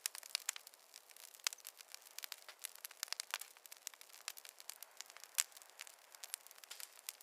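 Wood fire in a fireplace crackling: a dense, irregular run of small pops and snaps over a faint hiss, with a few louder snaps among them.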